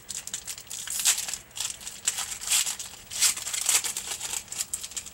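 A hockey card pack's wrapper being torn open and crinkled by hand: a dense run of irregular crackling rustles.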